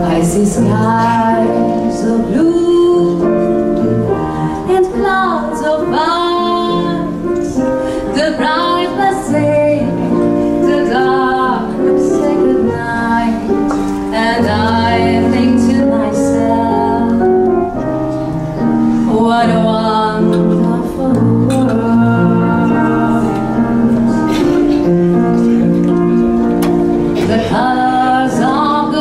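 A woman singing into a microphone over instrumental accompaniment, with her melody sliding and wavering above steady held lower notes.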